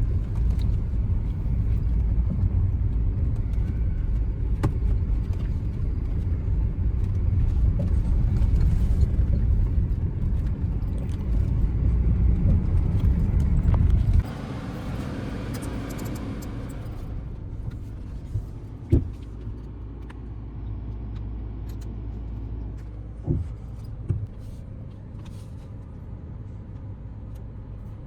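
Audi Q5 quattro driving, a loud low rumble of engine and road noise that drops suddenly about halfway through. A quieter steady low hum follows, with a few short knocks.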